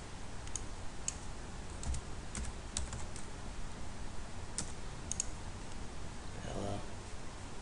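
Computer keyboard being typed on: a dozen or so separate, unevenly spaced keystrokes over about five seconds, entering a short word.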